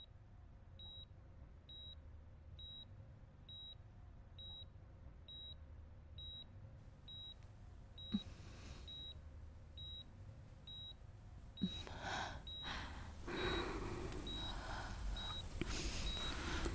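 Bedside patient monitor beeping faintly at an even pace, a little faster than once a second, keeping time with the heartbeat. Two soft knocks fall in the middle, and louder muffled sound builds up over the beeping in the last few seconds.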